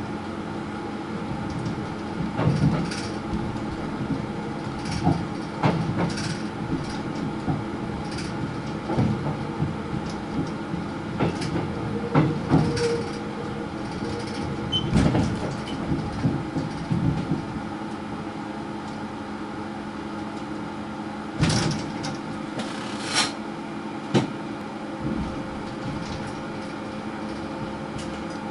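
Seoul Subway Line 5 train heard from the driver's cab while running on depot track: a steady electrical and motor hum with several steady tones, broken by irregular knocks and rattles, two of them louder about two-thirds of the way in.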